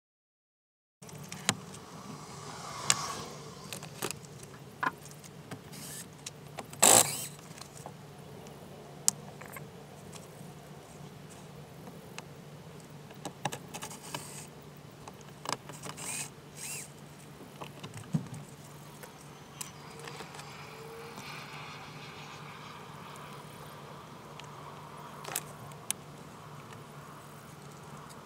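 Work sounds from taking a car's door trim panel off with a cordless drill-driver and hand tools: scattered clicks, rattles and short knocks of the driver, screws and plastic trim over a steady low hum, with one loud burst about seven seconds in.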